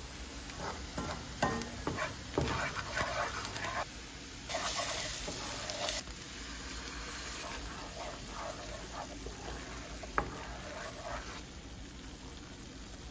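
Onions and spices frying in oil and butter in a pan, sizzling, while a wooden spoon scrapes and stirs tomato paste through them. The hiss grows louder for a second or two partway through, and the spoon knocks sharply against the pan once near the end.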